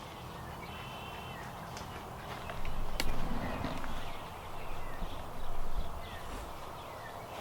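Poultry in the greenhouse calling, with a short high chirp about a second in, a sharp click about three seconds in, and louder calls in the middle.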